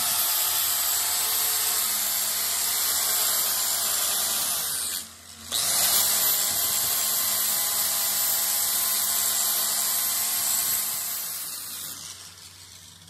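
Handheld angle grinder grinding the steel teeth of a pinion gear, a loud steady grinding noise. It drops out briefly about five seconds in, comes back, then tails off over the last couple of seconds.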